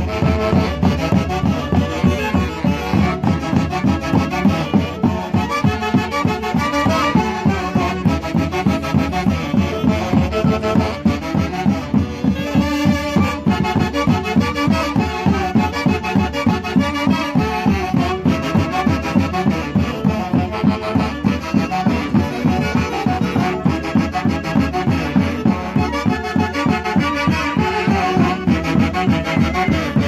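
Live Andean orquesta típica music: saxophones and clarinets playing the melody together over harp and violin, with a steady, even dance beat.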